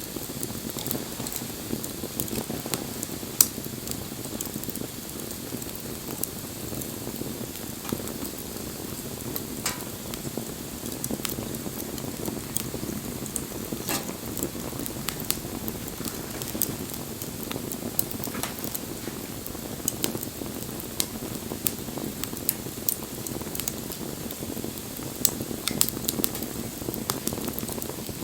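Wood bonfire burning: a steady low rush of flame under frequent sharp crackles and pops, with one louder pop about three seconds in.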